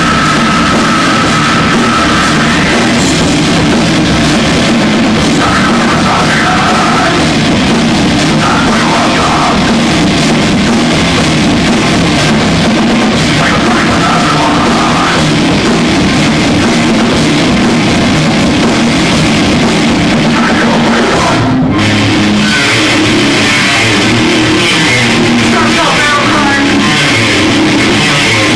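Rock band playing live and loud on electric guitar and drum kit, with a brief dropout about two-thirds of the way through.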